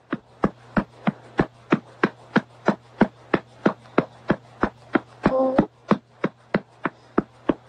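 A hand patting a baby's back in a steady rhythm, about three pats a second, burping him after a bottle. A short vocal sound comes in a little after five seconds, over a low steady hum.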